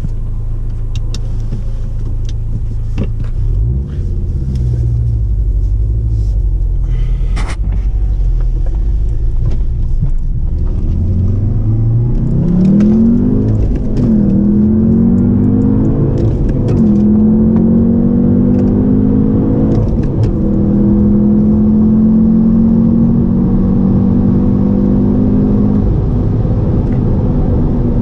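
Audi TTS turbocharged 2.0-litre four-cylinder engine running at low revs, then accelerating through the gears about halfway through: the pitch climbs, drops at each upshift, and climbs again, then holds steady at cruising revs.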